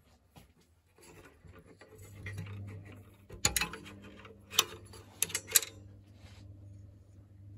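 A steady low electrical hum starts about a second in, with a series of sharp mechanical clicks over it, several in quick succession near the middle.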